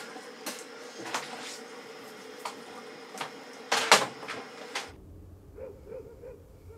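A series of separate clicks and knocks, like things being handled in a small room, the loudest about four seconds in. Just before five seconds the background drops abruptly to a quieter low hum.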